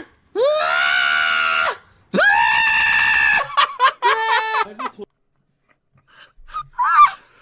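Domestic cat yowling loudly: two long, drawn-out cries of over a second each, then a few shorter calls, ending about five seconds in.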